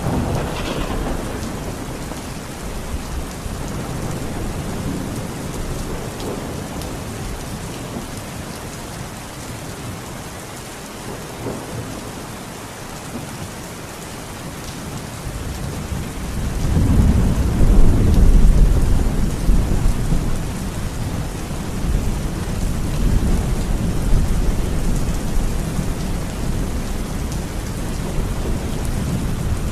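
Heavy rain falling steadily, with thunder rumbling in the background. About halfway through a louder, deep roll of thunder builds, peaks and fades away slowly.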